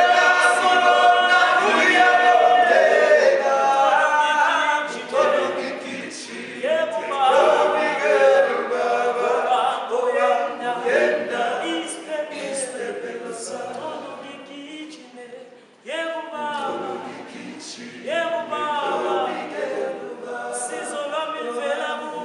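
A men's choir singing a cappella, several voices together with no instruments. Loud in the first few seconds, softer from about five seconds in, with a short lull about two-thirds of the way through before the voices come back in.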